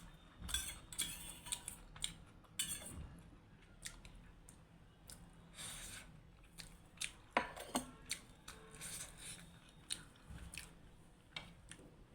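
A person chewing and smacking with food in the mouth, with scattered clicks of cutlery against a dish.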